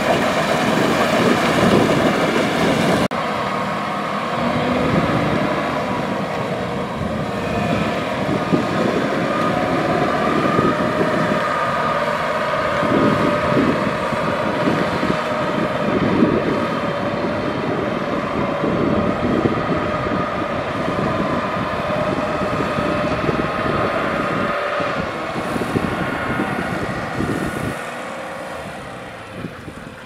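Kubota DC-95 combine harvester running steadily as it works, its engine and threshing machinery giving a constant pitched hum. The sound drops off near the end.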